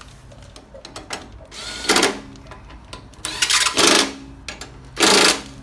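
Hand socket ratchet clicking in three short bursts, running down the front brake caliper mounting bolts on a Harley-Davidson Road King's fork leg.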